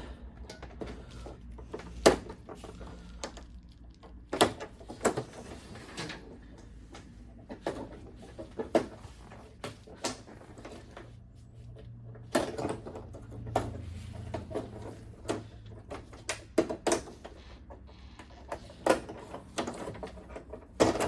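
Irregular clicks and knocks of plastic as a television's plastic panel frame is pried and worked loose from its clips by hand, with a faint steady hum underneath.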